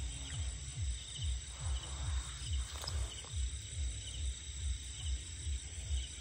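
Night insect chorus of crickets trilling steadily, with a low, regular throbbing about two to three times a second underneath.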